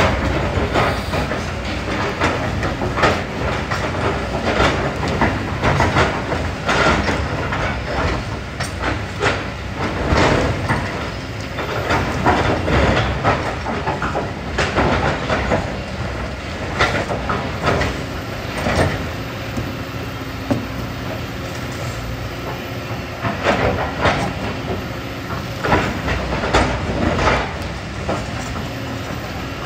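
Kobelco excavator's diesel engine running steadily, with irregular clanks and knocks as the bucket digs through sand, gravel and rocks.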